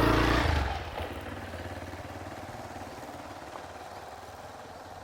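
Motorcycle engine running, then dying away within the first second, leaving a quieter steady background noise.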